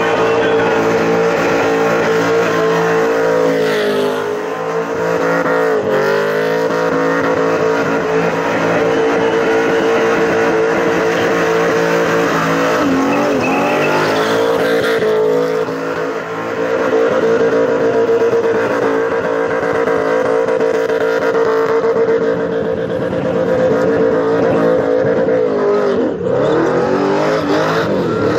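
Supercharged V8 in a VK Commodore held at high, steady revs in a burnout, the rear tyres spinning in clouds of smoke. Several times the revs dip briefly and climb straight back.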